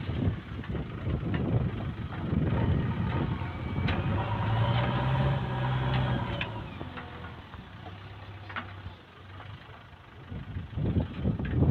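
Heavy diesel engine running. It rises into a strong, steady note for a couple of seconds in the middle, then drops back. A few sharp metallic clicks sound over it.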